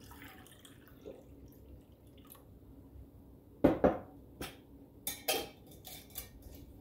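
Milk poured faintly into a metal measuring cup, then, a little past halfway, two loud knocks close together followed by a few lighter clinks of kitchenware.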